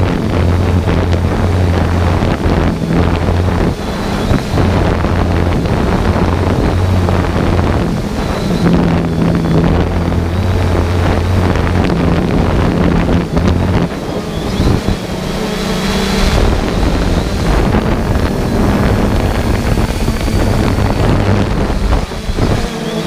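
Quadcopter drone in flight heard through its onboard camera's microphone: wind rushing over the mic with a low propeller hum that cuts in and out.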